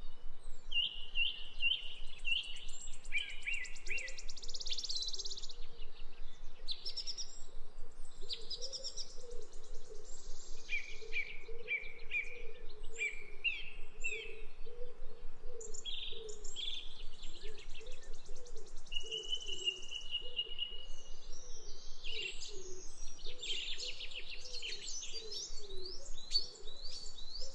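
Birds calling: a busy run of short repeated chirps, trills and chattering notes. A fainter low wavering sound runs underneath.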